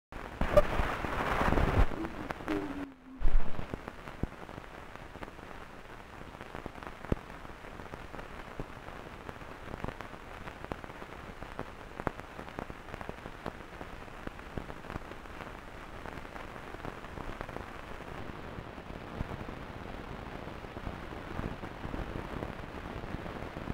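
A loud burst of noise for the first two seconds and a sharp click about three seconds in, then a steady crackling hiss dotted with scattered clicks.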